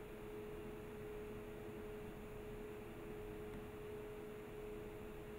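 Faint steady hum at one pitch, with no handling sounds from the O-ring being fitted.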